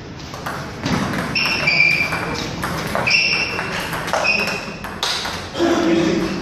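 Table tennis rally: a celluloid ball clicking sharply back and forth off the bats and the table, with short high squeaks in between. Near the end comes a brief voice as the point ends.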